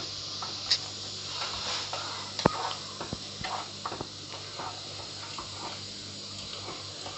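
Tomato puree being stirred in a cooking pan over a low hiss of frying, the utensil scraping and knocking lightly against the pan, with one sharper knock about two and a half seconds in.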